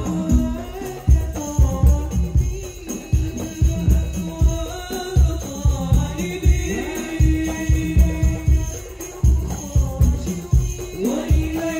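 Hadrah ensemble performing: male voices singing a melismatic Islamic devotional melody into microphones, over a fast rhythm of deep frame-drum and bass-drum strokes with a steady jingling rattle on top.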